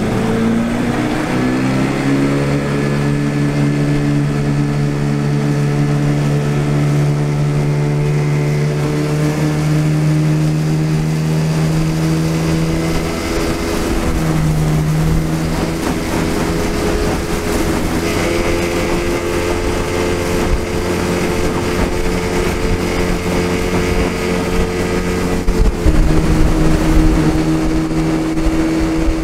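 Small outboard motor on an aluminum fishing boat revving up in the first couple of seconds, then running steadily at speed. There is a brief dip about halfway. Near the end the pitch shifts slightly and wind rumble on the microphone grows.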